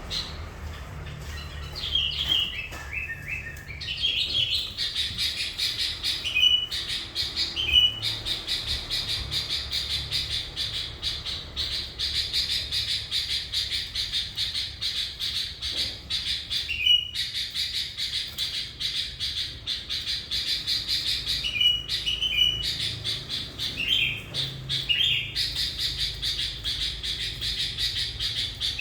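Sooty-headed bulbul (kutilang) singing hard: a dense, rapid high chattering that runs almost without pause, broken by short whistled notes a few times.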